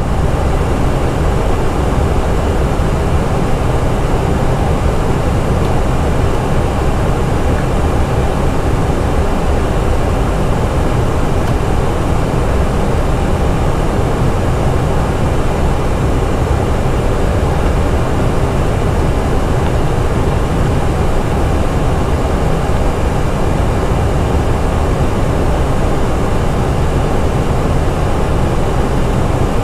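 Steady flight-deck noise of an Airbus A320 on descent: airflow and engine noise, even and unbroken, deepest in the low range.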